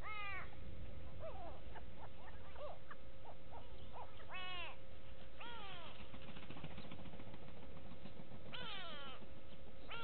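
Grey go-away-birds calling: four drawn-out calls, each rising and then falling in pitch, at the start, around four and a half and five and a half seconds, and near the end, with shorter notes between them in the first few seconds.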